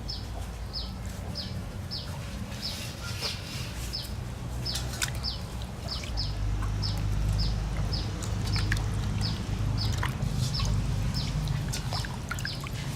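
A bird calling over and over, a short high chirp that drops in pitch, about twice a second and very regular. Under it runs a low rumble that grows louder about halfway through, with scattered small clicks.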